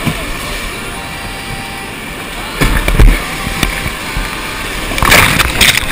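Whitewater rapids of the Colorado River rushing steadily around a boat, with waves crashing over the bow twice: about two and a half seconds in and again about five seconds in.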